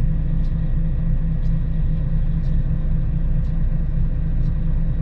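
Heavy diesel engine idling steadily with a low rumble, and a faint tick about once a second.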